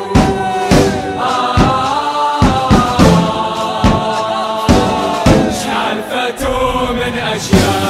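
Football ultras chant: a large group of supporters singing a melody together in unison, driven by steady drum beats.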